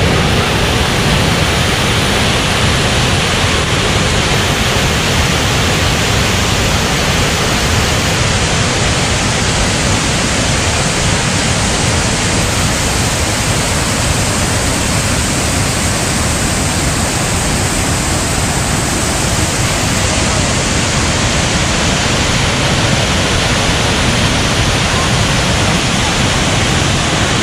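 Mountain waterfall pouring over boulders: a steady, loud rush of water.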